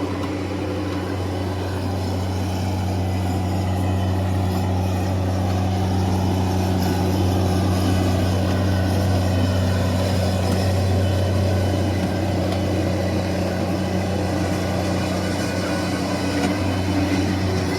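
Bobcat MT100 mini skid steer's diesel engine running at a steady, unchanging speed.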